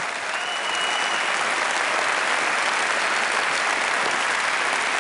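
A large theatre audience applauding, many hands clapping together in a dense, steady patter.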